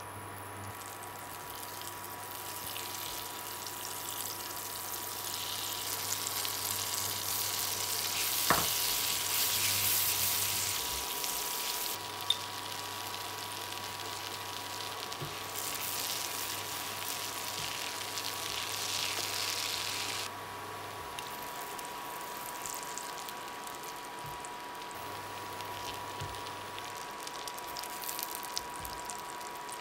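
Butter and olive oil sizzling in a hot frying pan. The hiss grows louder over the first ten seconds or so and drops sharply about twenty seconds in. Two sharp clicks sound partway through.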